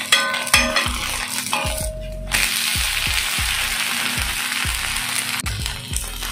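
Rice-and-toor-dal dosa sizzling in oil on a hot dosa griddle. The sizzle comes in suddenly a little over two seconds in and then holds steady, over background music with a steady low beat.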